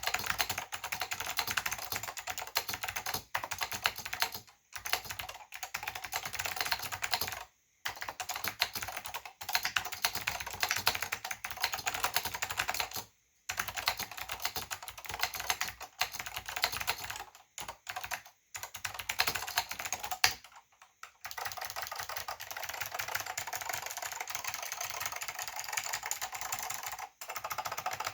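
Fast, continuous typing on a Northgate OmniKey/Plus keyboard with Alps SKCM White switches and doubleshot ABS keycaps: a rapid stream of clicky keystrokes, broken by a few short pauses.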